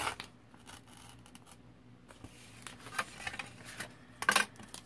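Paper being torn along the edge of a clear ruler in a few short rips, with paper rustling in between. The loudest rip comes near the end.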